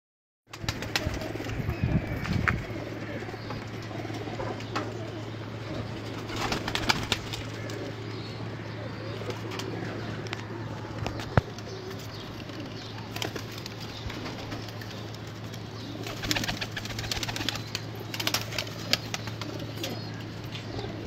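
Domestic pigeons cooing in a rooftop loft, with scattered sharp clicks and a steady low hum underneath.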